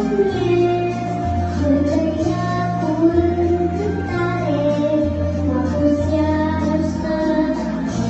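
A young girl singing into a microphone over music, with a bass line changing note about once a second.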